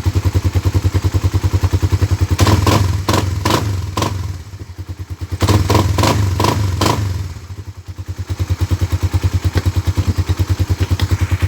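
Suzuki Raider R150 Fi motorcycle engine running on a freshly replaced air filter: idling steadily, revved up twice with a dip after each, then settling back to idle.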